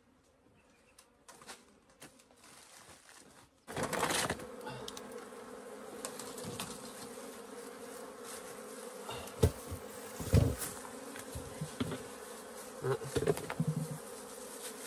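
Honeybees buzzing steadily in a dense hum around an opened stacked wooden box hive, starting about four seconds in. A few sharp knocks and bumps as the wooden hive boxes are handled and lifted stand out above the buzzing.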